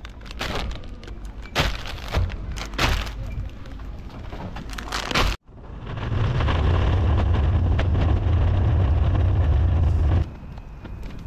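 Loaded metal shopping trolley being pushed, its wire basket rattling and knocking over the shop floor. After a short break, its wheels give a loud steady rumble over the car-park tarmac for about four seconds, easing off near the end.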